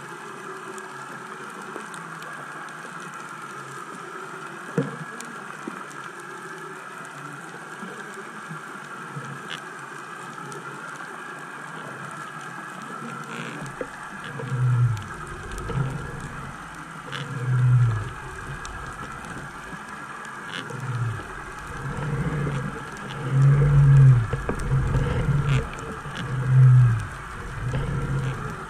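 Underwater noise picked up by a submerged camera: a steady hiss throughout, and from about halfway a run of loud, low rumbling surges, each about a second long, coming every second or two.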